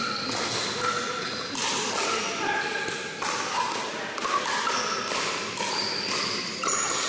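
Pickleball rally in a large echoing gym: the plastic ball popping off paddles again and again, with sneakers squeaking on the hardwood floor between hits.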